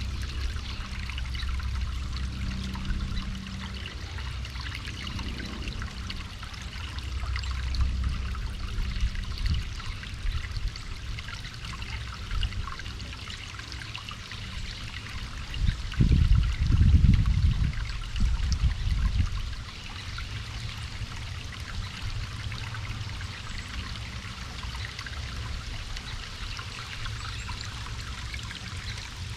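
Running water trickling steadily, like a small stream, over a low rumble. A louder low rumble swells for about three seconds past the middle.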